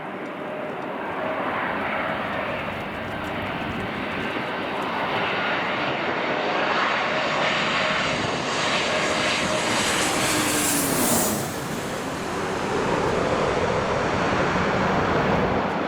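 Airliner passing close by at the airport, its engine noise building to a peak about ten seconds in, where a tone slides down in pitch as it goes past, then a steady rush continues. Strong gusting wind buffets the microphone throughout.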